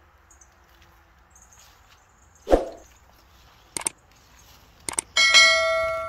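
Subscribe-button animation sound effect: a short pop about two and a half seconds in, then two double mouse clicks, then a notification bell that rings out with several steady tones and fades away.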